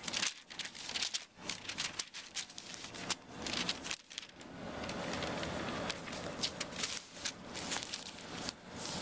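Glossy paper coupon inserts and circulars rustling and crinkling under a kitten pawing and rolling on them, with irregular sharp crackles.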